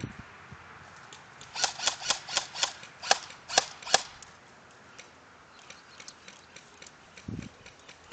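Airsoft gun firing about nine sharp shots in quick succession, irregularly spaced over two and a half seconds. Fainter scattered ticks and a single dull thump follow near the end.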